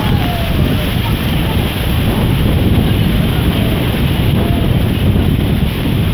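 Creek water rushing down a natural sandstone rock chute, a steady churning noise, with heavy wind buffeting on the microphone.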